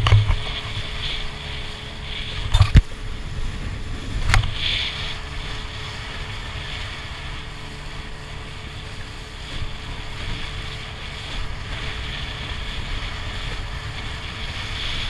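Steady low rumble of machinery aboard a fishing boat, with a faint constant hum tone, and a few sharp clinks of tableware a few seconds in.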